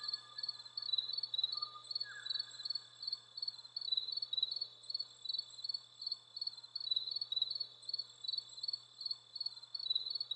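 Cricket chirping steadily in a high, even rhythm of about four chirps a second. A faint lower whistled note slides down about two seconds in.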